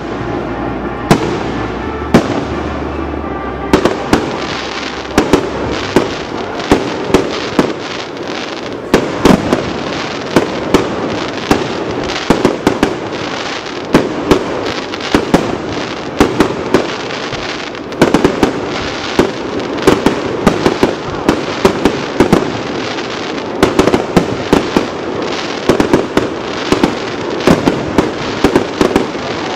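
Aerial fireworks display: shells launching and bursting in a near-continuous run, a sharp bang about every second over a steady wash of noise.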